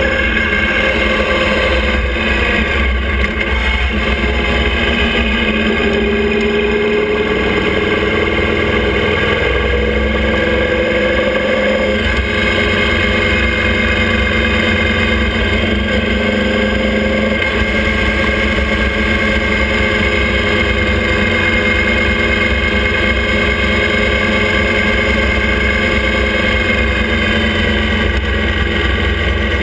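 Motorcycle engine running at a steady cruise while pulling a sidecar outfit, its pitch rising and falling slowly, over a steady rumble of wind on the microphone.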